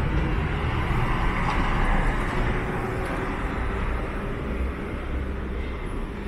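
Street traffic: a steady low rumble with a vehicle passing close by, swelling over the first two seconds and then fading away.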